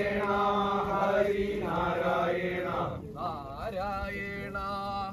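Devotional chanting: voices holding long, drawn-out notes over a steady low drone, with a short break about three seconds in before the chant carries on with more wavering notes.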